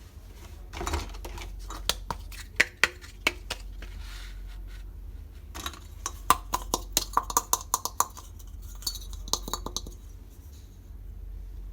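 Miniature steel toy pots, plates and utensils clinking and clattering against each other in quick clusters of sharp taps, over a steady low hum.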